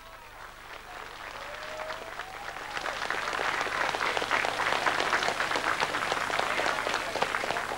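Crowd applauding: scattered claps at first, swelling into steady applause after about three seconds.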